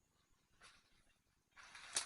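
Faint rustling and handling noise: a soft rustle about half a second in, then a louder rustle near the end that finishes in a sharp click.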